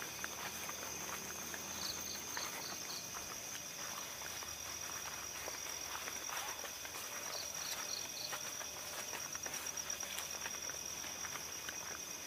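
Night insects trilling steadily in a continuous high tone, with two short runs of about five quick chirps, once about two seconds in and again near the middle. Footsteps rustle through undergrowth beneath them.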